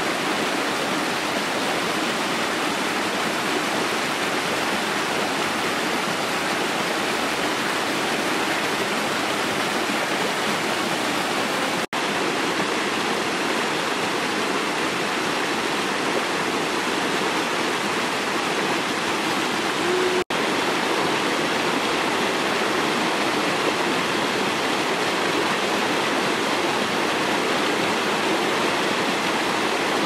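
Mountain stream rushing and splashing over rocks, heard close up as a steady rush of water. It cuts out for an instant twice.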